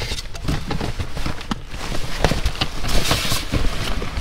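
Rustling and clatter of bags and objects being handled, many small irregular knocks and crinkles.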